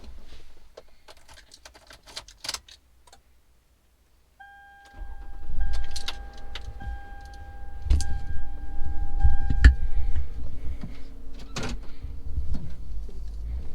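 Car sounds: a few clicks and knocks, then a steady electronic warning tone that sounds in stretches with short breaks from about four seconds in. A low engine rumble starts under it and keeps going.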